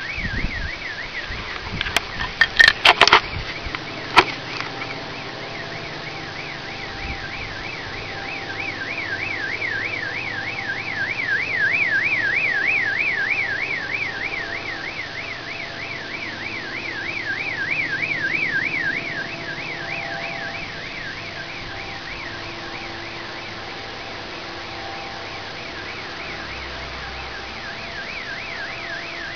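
Electronic car alarm siren warbling rapidly up and down without pause, over a steady background drone that the uploader likens to an airplane motor. A few sharp knocks come about two to four seconds in.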